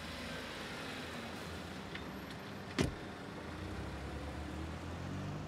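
Car engine idling steadily, with a car door shutting once about three seconds in.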